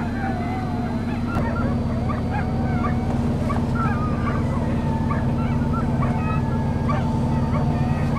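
Sled dogs whining and yelping, a chorus of overlapping wavering high calls, over a steady low engine hum that grows louder about a second and a half in.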